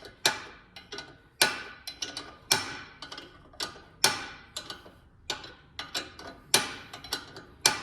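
Metal tools clicking and tapping on the brake caliper and suspension parts, a sharp strike roughly every second with smaller ticks between, each strike ringing briefly.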